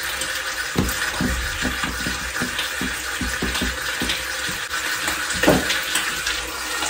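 Whole chicken frying in hot oil in a pan: a steady sizzle with many small crackles and pops as the oil spatters. A single knock about five and a half seconds in.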